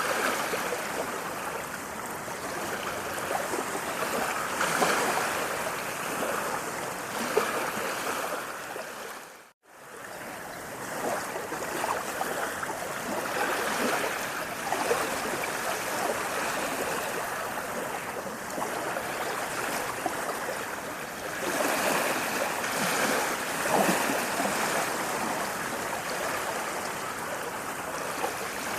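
Running water of a flowing stream, a steady rushing and splashing that swells and eases a little. About ten seconds in it fades briefly to silence and comes straight back.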